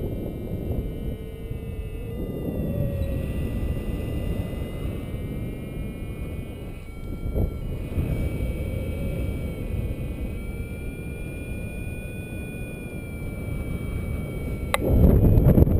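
Wind rushing over the camera microphone in flight on a paraglider, with several faint steady high tones that drift slowly in pitch. Near the end the wind noise grows much louder after a single sharp click.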